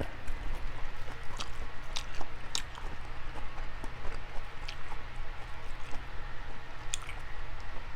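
A person chewing meat close to the microphone, with wet smacking and scattered sharp clicks.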